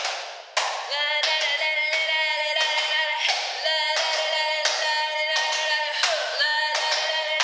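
Music: a song with hand claps and a sung melody that comes in about a second in.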